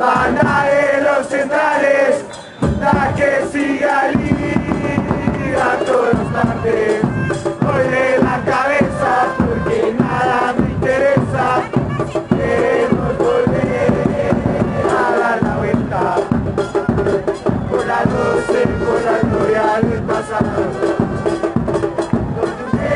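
Football supporters' crowd singing a chant in unison in the stands, with drums beating steadily under it, the drums coming in about two and a half seconds in.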